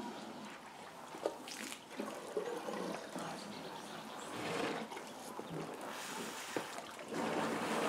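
Water splashing and gurgling at an elephant waterhole, coming in swelling gushes, with a single sharp click about a second in.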